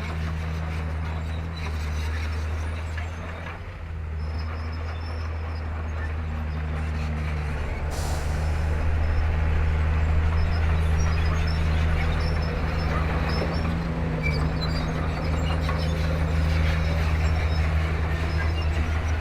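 Komatsu D31P bulldozer's diesel engine running steadily under load, a deep drone that dips briefly and then grows a little louder partway through.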